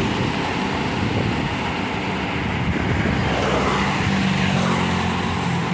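Tour bus's diesel engine running on the road, with tyre and traffic noise: a steady rumble and a low hum that comes up about halfway in.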